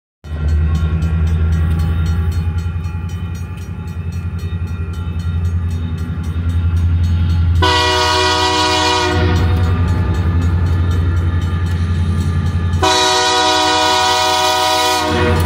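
Air horn of a Wisconsin & Southern diesel freight locomotive sounding for a grade crossing as the train approaches: a shorter blast about halfway through and a longer one near the end, over a steady low rumble.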